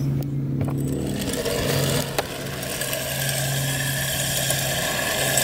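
Electric motor of a 3Racing RC drift car whining up in pitch over about the first second as the car pulls away, then running steadily with a hiss of its hard drift tyres on asphalt. A steady low hum sits underneath throughout.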